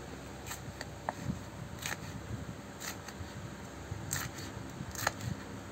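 A 7-inch steel chef knife slicing chilies on a wooden cutting board: a series of light, uneven knocks as the blade cuts through and meets the board, about one or two a second.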